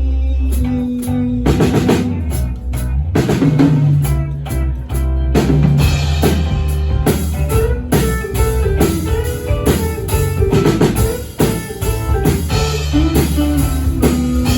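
Instrumental passage of a band's song: held bass and guitar notes, with the drum kit coming in under a second in and playing a steady beat, no vocals.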